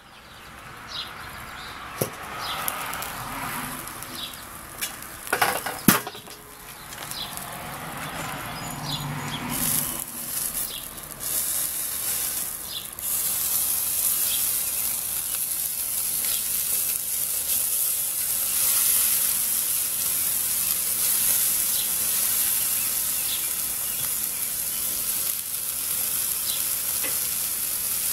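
Chicken pieces sizzling over hot charcoal on a kettle grill, a steady hiss that swells about ten seconds in as the lid comes off. A few metal clanks come in the first six seconds, the loudest about six seconds in, and tongs click on the grate as the pieces are turned.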